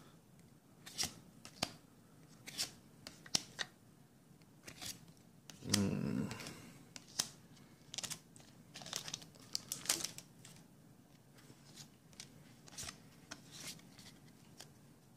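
Trading cards clicking and sliding against each other as they are flipped one by one, with a foil booster pack wrapper crinkling and tearing; the loudest rustle comes about six seconds in.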